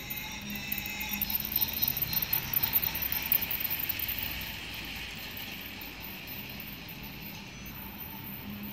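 Toy train running along plastic track: its small geared motor whirs and its wheels clatter over the rails. It gets louder and clattery as it passes close, about one to four seconds in, then fades as it moves away.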